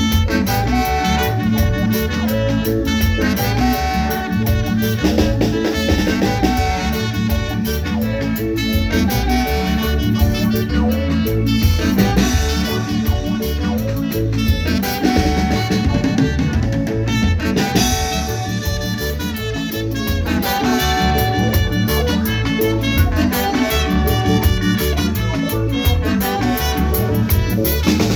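A live band playing a dance tune with a steady beat, with brass and a drum kit over a bass groove.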